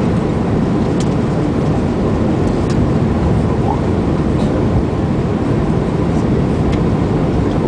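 Steady low roar of a jet airliner's engines and airflow, heard inside the passenger cabin during descent, with a few faint clicks.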